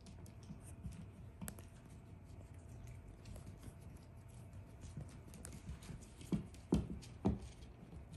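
Five-week-old puppies' paws pattering and clicking on a hard floor as they scuffle over rubber chew toys, with many small taps and three louder thumps in the last couple of seconds.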